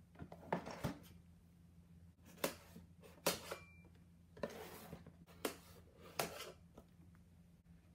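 Small cardboard toy box handled on a wooden tabletop: about half a dozen short knocks and scrapes as it is tipped over and set down, then a blade cutting the box's seal near the end.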